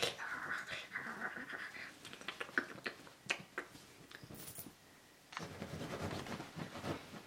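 Kittens moving on bedding while being petted: rustling fabric with a few sharp scratches and clicks. There is a short near-silent gap about five seconds in, then more rustling.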